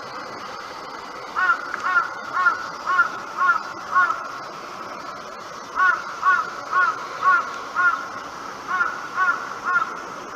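A crow cawing: three runs of short, arched caws at about two a second, six, then five, then three, over a steady background hiss.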